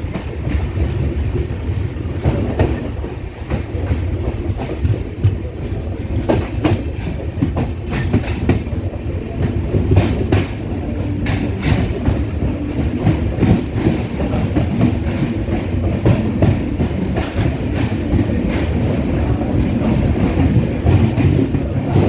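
Passenger train running along the track, heard from on board: a steady low rumble with irregular clicks and knocks as the wheels pass over rail joints.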